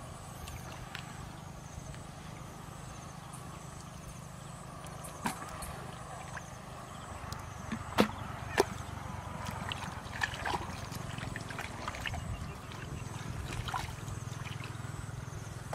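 Hands groping through shallow muddy water, making small splashes and wet squelches, the sharpest two about halfway through, over a steady low rumble.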